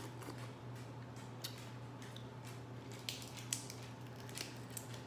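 Boiled shellfish shells being cracked and peeled by hand: a series of sharp snaps and clicks, the loudest about three and a half seconds in, with some wet squishing.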